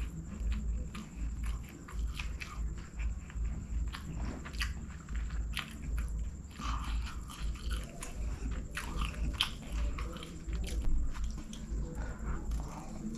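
Close-miked chewing of a mouthful of chicken basmati rice eaten by hand, with irregular clicks, smacks and occasional crunches from the mouth; another handful goes in near the end.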